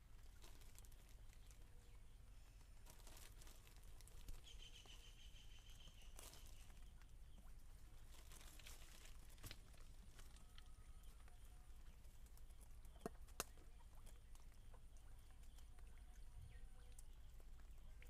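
Near silence: faint outdoor background with a few scattered faint sounds and a couple of sharp light clicks about thirteen seconds in.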